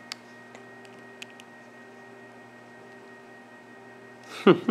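Steady electrical hum with a few faint clicks as a small precision screwdriver's tip slips on the tiny screws of a plastic watch case; the cheap screwdriver does not fit. Near the end comes a brief, loud vocal sound.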